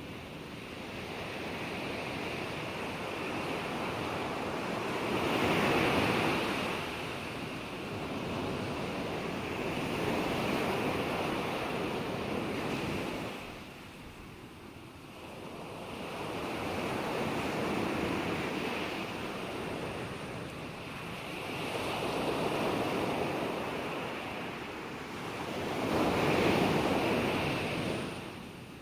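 Ocean waves breaking and washing in, a rushing hiss that swells and falls away in slow surges every four to seven seconds, the loudest near the start and near the end.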